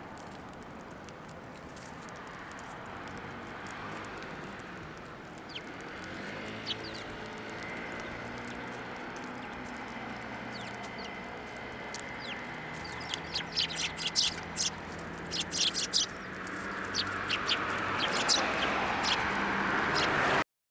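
Birds chirping over a steady street hum, with a rapid flurry of short, sharp chirps in the second half.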